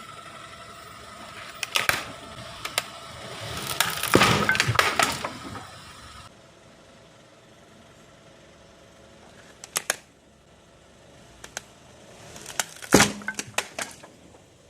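A smartphone's glass and plastic cracking and crunching as it is crushed: scattered sharp cracks, a stretch of crackling about four seconds in, and the loudest crack near the end.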